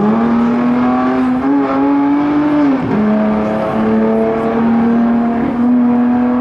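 A motor vehicle's engine revving: its pitch climbs and then holds high and steady, dipping briefly about three seconds in.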